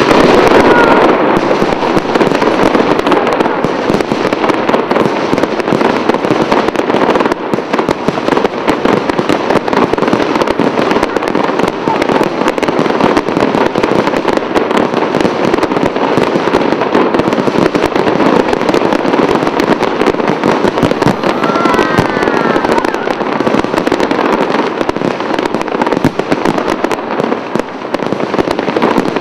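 Fireworks display bursting without pause: a loud, dense barrage of bangs and crackles.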